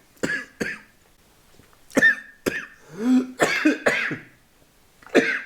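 A man coughing: two short coughs, then about two seconds in a run of several harsh coughs, and one more near the end. The coughing is set off by the burn of a hot chili in his mouth and throat.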